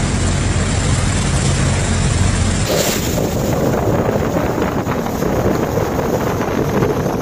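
Fast-flowing floodwater rushing steadily, with a low, steady engine hum under it. About two and a half seconds in, the hum stops and the water is heard with rough wind buffeting on the microphone.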